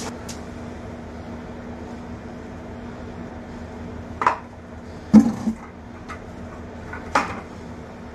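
A plastic five-gallon bucket knocking and clunking as wet concrete is poured from it onto a concrete floor. There are three short knocks, about four, five and seven seconds in, and the middle one is loudest. A steady low hum runs underneath.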